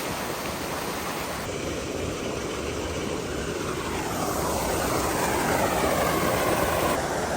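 A propeller airplane passing overhead, its drone growing slowly louder, over the steady rush of a creek and waterfall.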